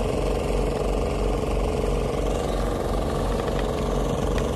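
An engine aboard a wooden fishing boat running steadily at a low idle, with a regular low throb under an even mechanical drone.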